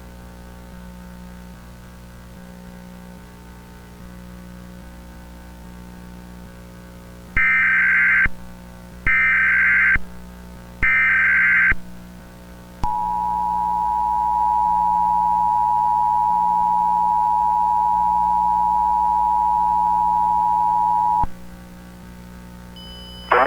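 Emergency Alert System tones announcing a tornado warning: three one-second bursts of the SAME digital header with short gaps between them, then the steady two-tone attention signal held for about eight seconds before it cuts off.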